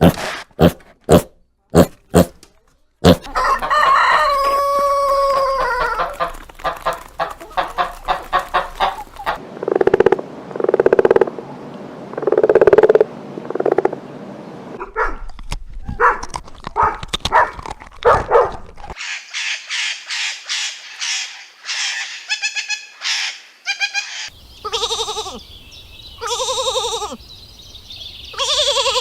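A rooster crowing once, a few seconds in, within a run of different farm animal calls in turn.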